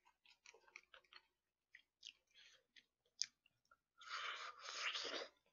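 Close-miked eating sounds: small wet mouth clicks and chopstick ticks, then about four seconds in a louder, noisy mouthful lasting about a second as a bite of braised chicken with kimchi is taken and chewed.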